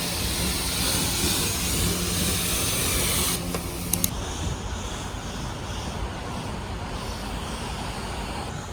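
Self car-wash high-pressure spray wand spraying, a loud hiss over a steady pump hum. About three and a half seconds in the spray stops, two sharp clicks follow, and a softer hiss carries on.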